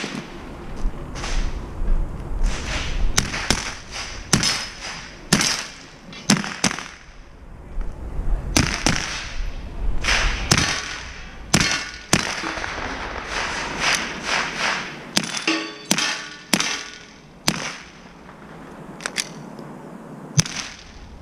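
A string of sharp .22 rifle shots at irregular intervals, some in quick pairs and others a second or more apart.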